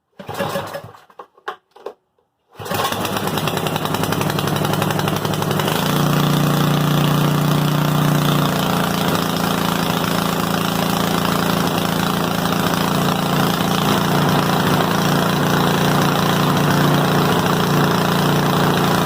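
Briggs & Stratton 8 hp single-cylinder snow blower engine being cranked in a few short bursts, then catching about two and a half seconds in and running, settling into a louder steady run about six seconds in. It is the first start after a carburetor clean-out from old, stale gas.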